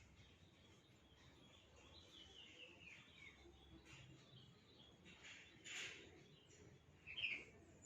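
Domestic canary chirping faintly: a run of quick falling notes about two seconds in, and one short chirp, the loudest sound, near the end. A brief noisy burst comes between them.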